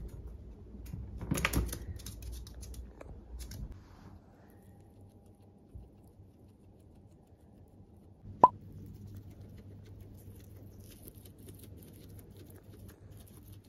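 Guinea pig munching fresh cat grass, fine crisp crunching of the blades, after some rustling and clicking in the first few seconds. A single short, loud pop sound effect comes about eight seconds in.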